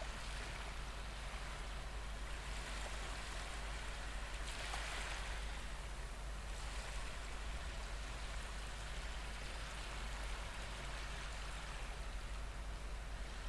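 Ocean waves washing ashore: a steady wash of surf that swells and eases every few seconds.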